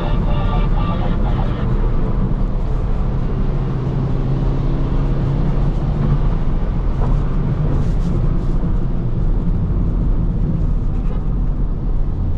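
2018 Skoda Octavia vRS 230's 2.0-litre turbocharged four-cylinder engine running steadily on the move, with tyre and road noise.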